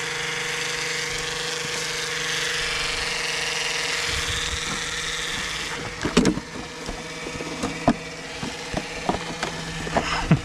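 A motor running steadily, stopping about six seconds in, followed by scattered clicks and knocks.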